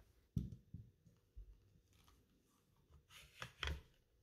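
Faint handling noise of an M1 Garand rifle being taken apart: a knock about half a second in, a couple of light taps, then a short scrape near the end as the barrel and receiver group is lifted out of the wooden stock.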